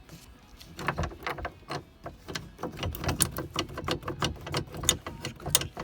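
A quick, irregular run of sharp clicks and knocks, many per second, from car interior parts being handled and worked by hand.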